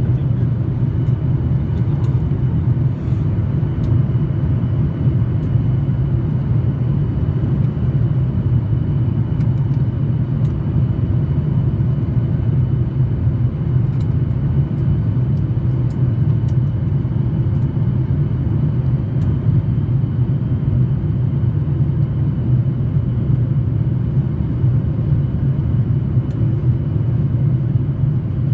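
Steady cabin noise inside a SpiceJet Boeing 737 descending in cloud: the turbofan engines and airflow make a low, even rumble with a faint, steady high whine above it.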